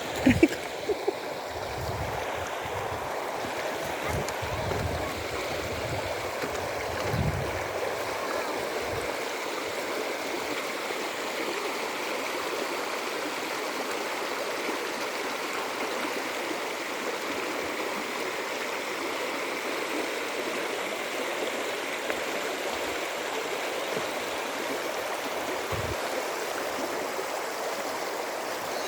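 Steady rush of flowing stream water, with a few sharp knocks in the first second and low thumps over the first several seconds.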